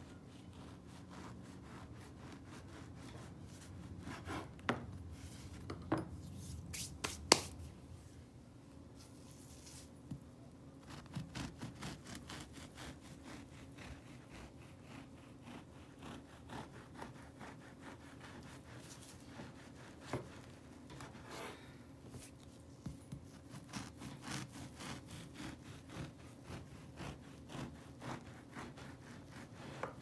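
Bread knife sawing through crusty loaves on a wooden board, the blade rasping through the crust in quick repeated strokes. A few sharp knocks come about five to seven seconds in.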